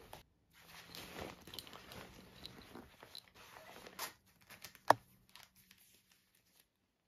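Books and a pencil case being packed into a fabric backpack: rustling of cloth and paper, then one sharp knock about five seconds in, followed by a few light clicks.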